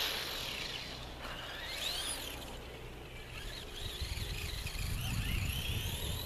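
Traxxas Skully RC monster truck's electric motor whining up and down in pitch as the throttle is worked. A low rumble comes in about four seconds in.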